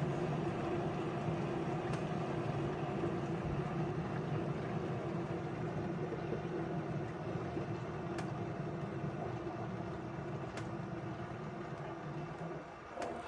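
Water heater tank refilling: water rushing in through the supply line with a steady hum, slowly getting quieter near the end.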